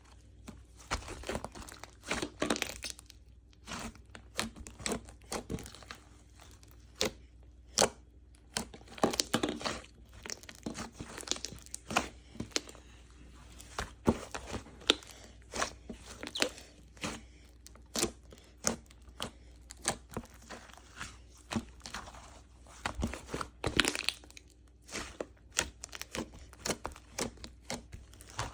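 Slime being squeezed, stretched and pressed by hand, making irregular sticky pops and crackles, some clustered and some sharp and louder.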